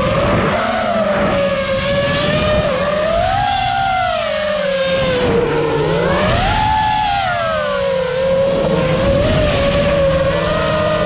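FPV racing quadcopter's brushless motors and propellers whining, the pitch swelling up and back down twice as the throttle is worked, over steady propeller-wash and wind noise from the onboard camera.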